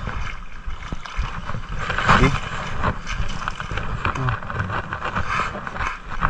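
Wind buffeting a GoPro's microphone in uneven low gusts, with scattered footsteps and knocks on a narrow wooden-plank and bamboo footbridge.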